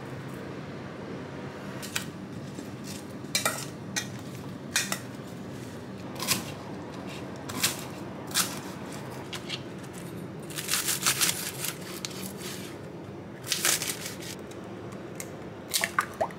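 Kitchen prep sounds over a steady low room hum. There are scattered clinks of a spoon in a stainless steel bowl, then a knife tapping through green onions on a plastic cutting board, with quick runs of chopping taps a little past halfway. Near the end an egg cracks on the rim of a bowl.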